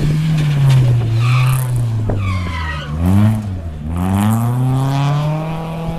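BMW E36 3 Series Compact rally car's engine coming off the throttle into a corner, with a quick rev blip about three seconds in. It then pulls away, its note rising steadily as it accelerates, while the tyres slide on loose gravel.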